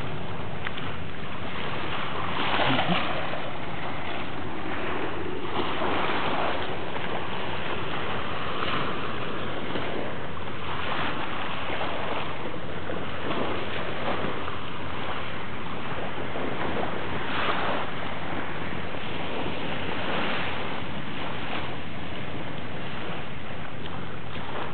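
Steady rush of wind and sea water, with waves swelling and splashing every two to three seconds.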